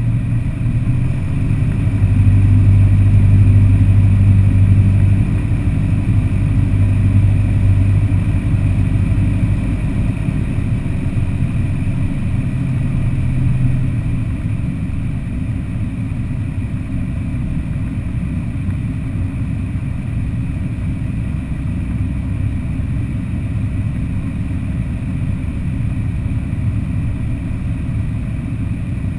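Cessna 172R's four-cylinder piston engine and propeller droning in flight, with air rushing past. The drone is louder in the first half, then settles steadier and a little quieter about halfway through.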